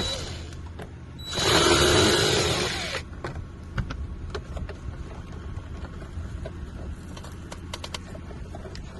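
A small electric screwdriver or drill motor runs for about two seconds, backing out a trim screw in a car's footwell, with scattered light clicks of handled parts around it.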